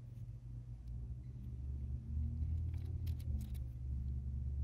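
Low steady rumble that swells about two seconds in, with a few light metallic clicks as small parts of a 6T45 automatic transmission are handled.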